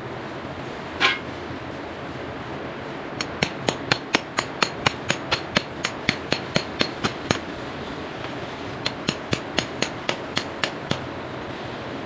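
Hand hammer striking a steel chisel in quick ringing blows, about five a second, to chip open around water pipes. Two runs of strikes, the first about twenty blows long, then a pause and about ten more.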